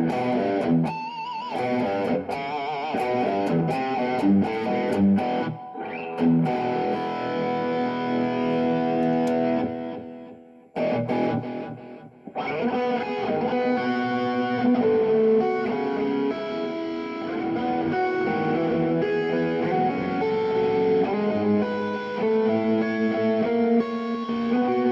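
Electric guitar played through a Kemper Player amp-modelling unit: melodic single notes with a bent, wavering note near the start, then a held chord that rings and fades out about ten seconds in. After a short gap the playing starts again.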